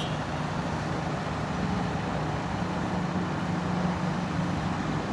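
Heavy diesel construction machinery running steadily with a constant low engine hum.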